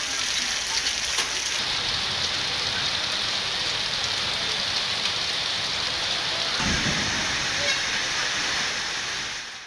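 Heavy rain pouring steadily, an even hiss of rain falling on a wet street. A brief low rumble comes about seven seconds in, and the sound fades out at the end.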